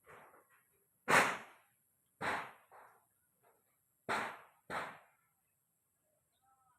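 A series of about six sharp strikes, roughly a second apart, each dying away quickly; the loudest comes about a second in.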